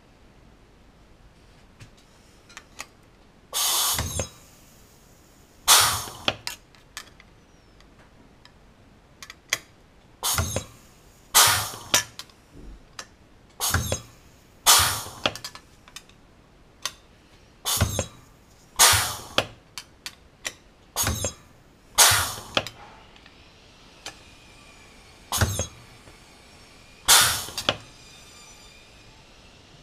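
Bench-mounted dimpling press stamping dimples into the rivet holes of thin aluminium aircraft parts: a sharp metal clack with a short ring at each stroke, more than a dozen strokes at irregular intervals of one to two seconds.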